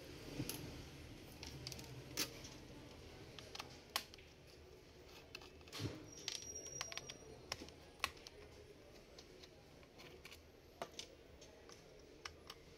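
Faint, scattered small metallic clicks and taps of a hand screwdriver working screws out of a Dell Latitude E6440 laptop's chassis, with loose screws knocking against the metal, coming irregularly rather than in a rhythm.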